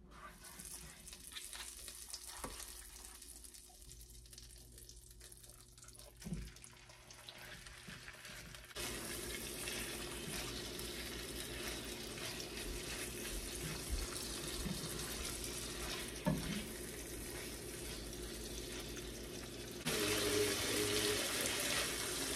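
Oil and butter sizzling faintly in a hot frying pan, then diced raw chicken breast goes in about nine seconds in and the pan starts sizzling loudly. It gets louder again near the end as the chicken is stirred, with a few light clicks of the spatula.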